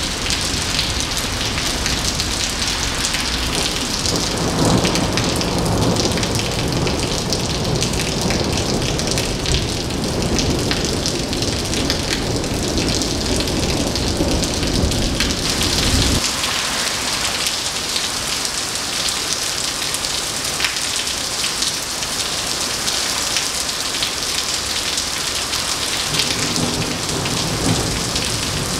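Heavy rain pouring and splashing on wet pavement in a severe thunderstorm. A low rolling rumble of thunder sits under it through the first half and stops abruptly about halfway through.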